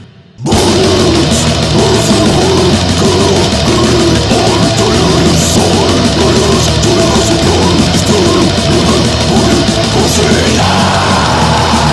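Death metal song played loud by a full band, distorted guitars, bass and drums; the band crashes back in about half a second in after a short stop.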